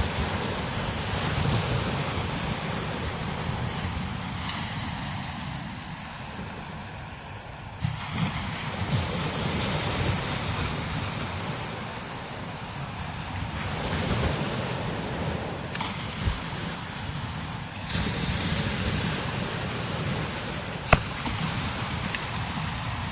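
Strong desert wind blowing over sand dunes in gusts that swell and ease, with a low rumble underneath and a few sudden step-ups in strength. A single sharp knock about 21 seconds in.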